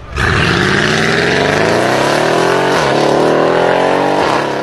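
Mercedes-AMG GLE 63 S's twin-turbo V8 launching hard. Revs climb steeply, with a short dip at each upshift, one near three seconds in and another past four.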